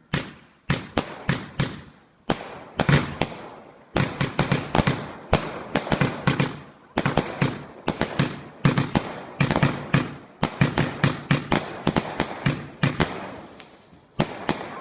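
Standard Fireworks Colossus firework firing in rapid volleys: sharp bangs several times a second, with brief lulls between the volleys.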